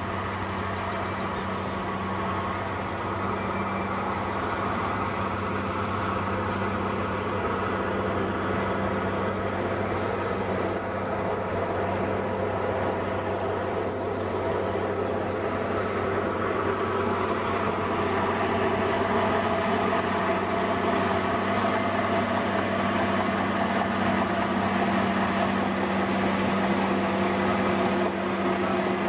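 Bulldozer's diesel engine running steadily under working load, a constant low drone that grows slightly louder over the stretch.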